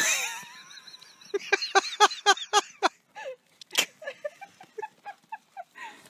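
Animal calls: a loud harsh squawk at the start, then a quick run of short, pitched calls about four a second, and a second, looser run of similar calls near the end.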